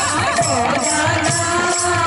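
Odia kirtan music: a woman singing a devotional melody through a microphone over a steady rhythm of double-headed barrel drums (mridanga/khol), with the shimmer of small hand cymbals.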